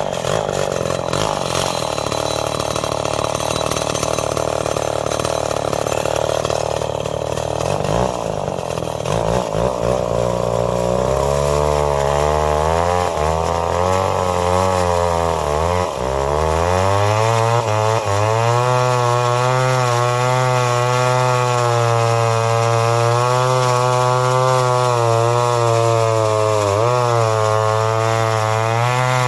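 Remington SL-11 two-stroke chainsaw with a full-skip chain running at high throttle. For the first ten seconds or so it runs lower and noisier under load as it cuts frozen wood. It then rises to a steady high pitch, dipping briefly once near the end.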